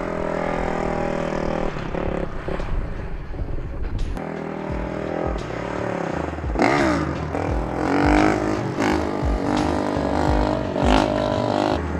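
Ice-racing motorcycle engine running and revving, its pitch rising and falling as the rider works the throttle; it climbs sharply about seven seconds in and again near the end.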